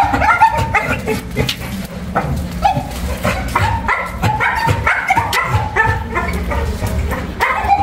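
Pit bull puppies yipping and barking in a rapid string of short, high calls, over a steady low rumble.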